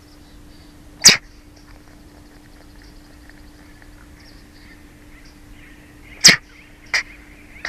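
Bald eaglets giving sharp, sneeze-like bursts: one about a second in, then three close together near the end. These seem to be the eaglets trying to clear something from their throats. Small birds chirp faintly behind, over a steady hum.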